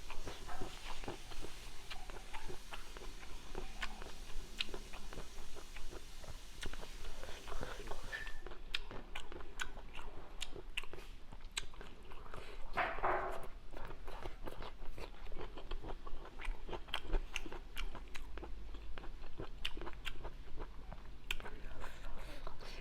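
A person chewing and crunching a mouthful of papaya salad with noodles close to the microphone: a steady run of short crisp crunches and mouth clicks.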